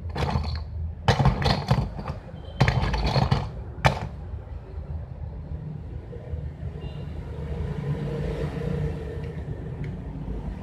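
Knocks and clatter of a laptop being handled, in three bursts ending with a single sharp click about four seconds in, then a steady low rumble.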